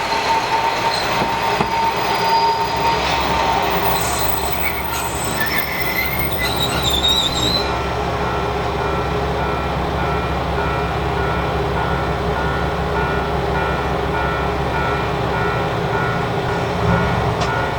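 Diesel railcar running on the line, its wheels squealing in a wavering high tone for a few seconds about four seconds in, over a steady low engine drone that carries on after the squeal stops.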